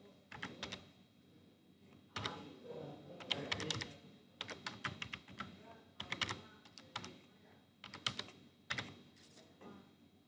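Typing on a computer keyboard in irregular bursts of quick key clicks with short pauses between them, as text is entered.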